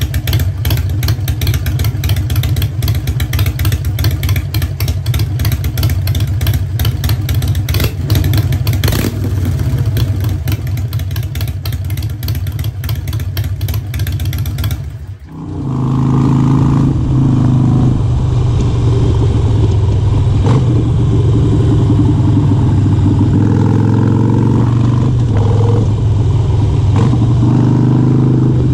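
Harley-Davidson Sportster 883's air-cooled V-twin running with the bike parked, close to its exhaust. About halfway through it cuts to the same engine out on the road, its note shifting up and down with engine speed.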